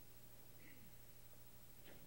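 Near silence: a faint steady hum and hiss, with a faint click near the end.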